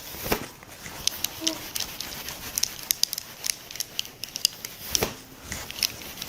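Many light, irregular clicks and ticks with faint rustling, as of small objects being handled, with a couple of slightly heavier knocks near the start and about five seconds in.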